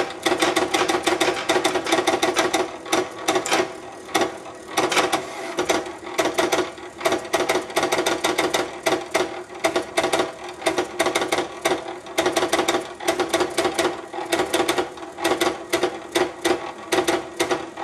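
HP 7475A pen plotter drawing: its motors whir and click in rapid, uneven short bursts as they drive the pen carriage and paper back and forth.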